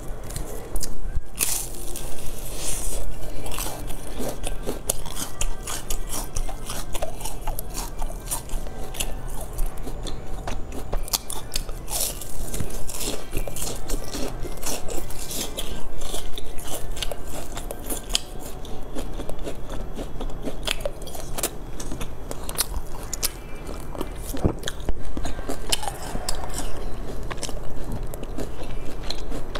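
Close-miked biting and chewing of purple rice cakes, thin round golden shells filled with purple rice, with many sharp crackly crunches coming thick and fast throughout.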